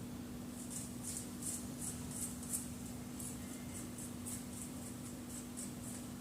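Light rasping strokes of garlic and ginger being grated on a hand grater, about two to three a second in two short runs, over a faint steady hum.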